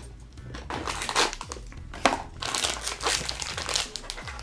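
Foil blind-bag crinkling and crumpling in a child's hands as it is pulled out of a toy box and handled, an irregular crackle.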